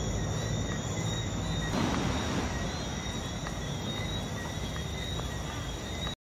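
Night insect chorus: a steady, high-pitched trilling from crickets at several pitches at once, over a low rumble on the microphone. It cuts off suddenly near the end.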